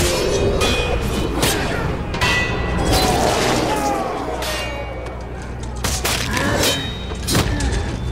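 Film battle sound effects: a rapid series of heavy impacts and ringing metallic clangs of spears, swords and shields striking, with men's shouts. A music score runs underneath.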